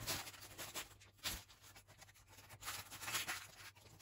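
Silicone spatula spreading melted chocolate over a filling in a parchment-lined pan: a series of soft, irregular scrapes.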